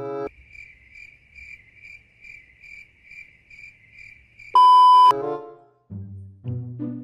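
Cricket-chirping sound effect, a steady pulsing trill about two and a half times a second: the stock 'crickets' gag for an empty head. It gives way to a loud half-second beep, and then a few bouncy music notes start near the end.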